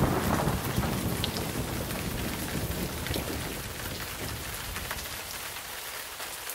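Steady rain with a low rumble of thunder dying away, the whole storm sound fading out gradually.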